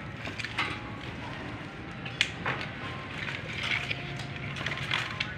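Irregular clicks, scuffles and knocks of puppies scrambling about on a hard floor, over a steady low hum. The sharpest knocks come about two seconds in.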